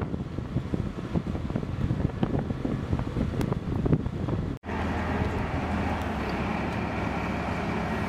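Ultra Heavy-lift Amphibious Connector (UHAC) tracked amphibious vehicle running as it crawls over grass and sand: a low, uneven engine rumble with wind on the microphone. About halfway through, a sudden break gives way to a steadier engine drone with a low hum.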